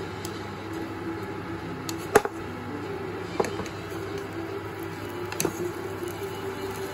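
Black slotted spatula stir-frying food in a nonstick wok over a hot cooktop: a steady light sizzle, with sharp clacks of the spatula against the pan, the loudest about two seconds in and more around three and a half and five and a half seconds.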